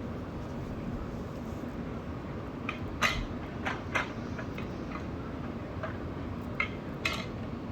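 Hard plastic cabinet panels and parts clicking and knocking together as they are fitted during assembly, a few sharp clacks scattered through the second half over a steady low hum.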